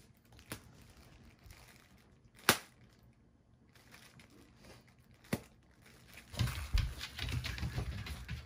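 Bubble wrap being popped by hand: three single sharp pops spaced a couple of seconds apart, the middle one much the loudest. Near the end the sheet is twisted in both hands, giving a burst of plastic crinkling with quick small pops.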